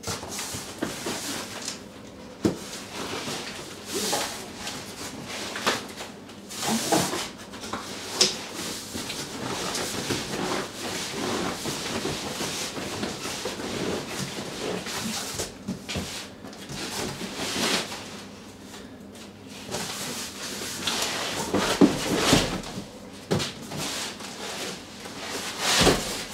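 Large cardboard boxes scraping and rubbing against each other as an outer shipping carton is worked up and off an inner product box, in irregular rustles and drags with occasional sharp knocks, the loudest near the end.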